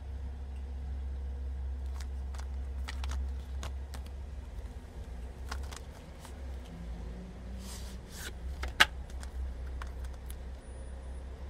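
Plastic Blu-ray case handled and turned over in the hands: scattered light clicks and rustles, with one sharp click about nine seconds in that is the loudest. A steady low rumble runs underneath.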